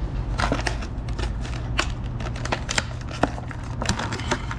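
Stiff clear plastic clamshell packaging of a new fuel filter crinkling and crackling as it is handled and pried open, with many irregular sharp clicks and snaps.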